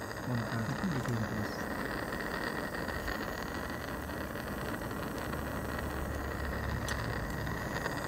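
Gas torch burning with a steady hiss, with a low rumble growing underneath from a few seconds in.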